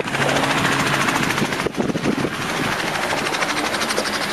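A light helicopter running on the ground, its rotor beating in a fast, even chop, over the hum of a vehicle's engine.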